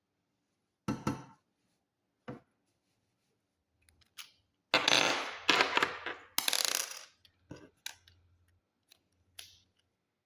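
Small hard parts and hand tools clicking and clattering on a hard surface: a few separate clicks, then a busier clatter lasting about two and a half seconds from around the middle, then a few more clicks. These are handling sounds from taking apart a PC to get at the RAM.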